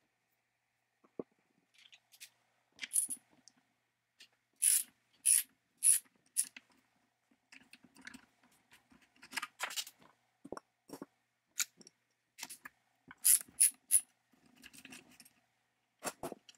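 Small metal parts and hand tools clicking and clinking against the cast housing of an old electric chainsaw motor as it is taken apart. The sharp clicks come irregularly, in a few quick clusters, with quiet gaps between them.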